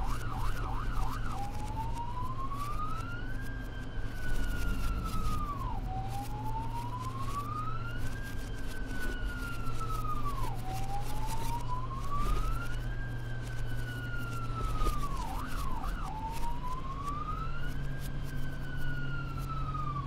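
Ambulance electronic siren: it begins with a rapid yelp, then wails in slow rising and falling sweeps of about four to five seconds each. It breaks into a brief rapid yelp about fifteen seconds in and again at the very end, over a steady low hum.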